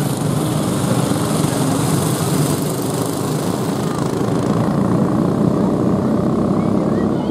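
A pack of racing go-karts with 5 hp Briggs & Stratton Raptor flathead engines running laps together, their small engines droning steadily.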